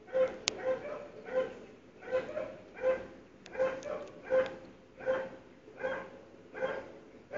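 A dog barking over and over in a steady series, about one bark every three-quarters of a second, with a few sharp clicks in between.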